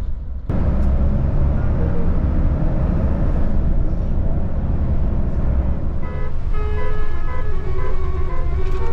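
Steady low rumble of a tour bus on the move. About six seconds in, a tune of held tones starts, changing pitch in quick steps.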